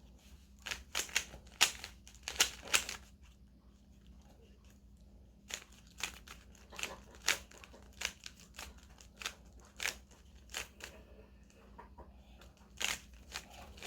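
Plastic Rubik's cube being turned by hand: a run of quick, irregular clicks and scrapes as the layers turn, with a pause of a couple of seconds about three seconds in. The cube is sticky and turns stiffly.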